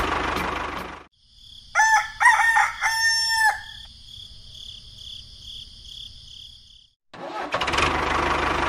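Rooster crowing: two short notes and then a long held one, over a faint steady high-pitched background. A tractor engine sound runs for about the first second and comes back near the end.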